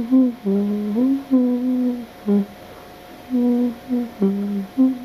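A slow, simple melody of held low notes that step up and down, each lasting about half a second to a second, with short gaps between them. It has a humming quality.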